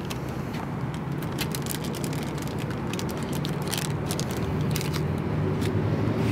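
A low steady rumble, growing a little louder, with scattered short sharp crackles of snack packaging being handled.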